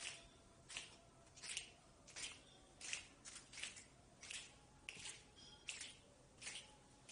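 Faint, short swishing strokes repeating at an even pace, about one every three-quarters of a second.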